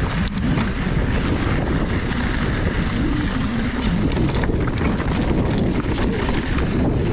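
Steady wind rush on the action camera's microphone as a mountain bike rolls down a dirt trail, with scattered clicks and rattles from the bike and tyres going over stones.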